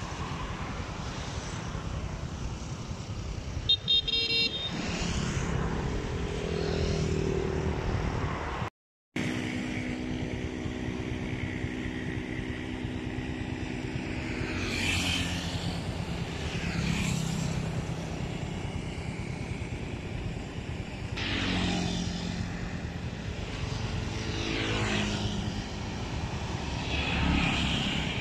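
Road traffic: heavy trucks and other vehicles driving past, their engine sound swelling and fading one after another. A short high toot, like a horn, comes about four seconds in.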